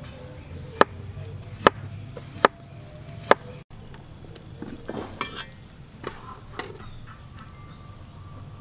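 Kitchen knife slicing green tomatoes on a plastic cutting board: four sharp chops of the blade striking the board, evenly spaced a little under a second apart. After a break, a few softer knocks and scrapes as the slices are gathered up.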